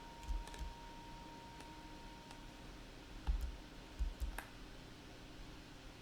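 Computer mouse and keyboard clicks at a desk, a few scattered clicks with dull thuds: a small cluster near the start and another around three to four seconds in.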